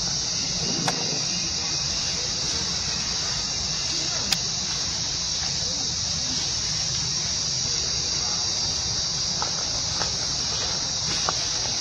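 Steady high-pitched insect chorus droning without a break, with a few faint sharp clicks.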